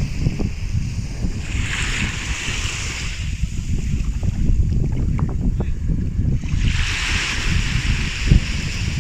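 Waves washing up on a beach, the wash swelling about a second and a half in and again around six and a half seconds in. Wind buffets the microphone throughout as a constant low rumble.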